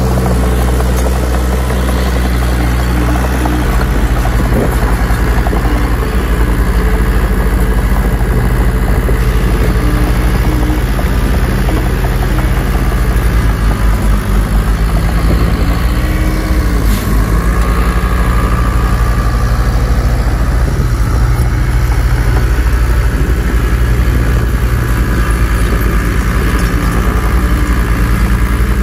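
Bulldozer's diesel engine running steadily as it works, with a chugging low throb and a brief wavering in pitch around the middle.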